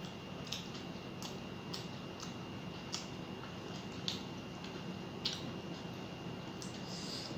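Eating by hand: short wet clicks and squishes about once a second, from chewing and from fingers mashing rice and fish on the plate, over a steady faint hiss with a thin high whine.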